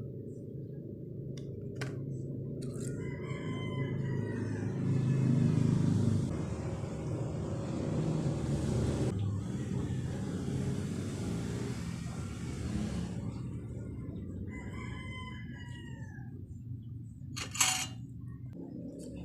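A rooster crowing twice, once about three seconds in and again near the end, over a steady low hum. A sharp click sounds just after the second crow.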